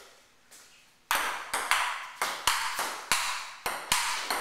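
Table tennis rally: the ball clicks back and forth off paddles and the table, about three hits a second, starting about a second in.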